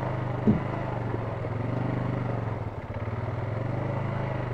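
ATV engine running steadily at low revs, with one brief knock about half a second in.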